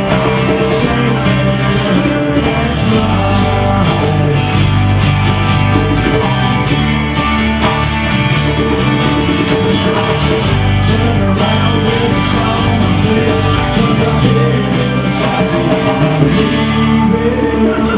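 Live band playing a song at full volume, steady throughout.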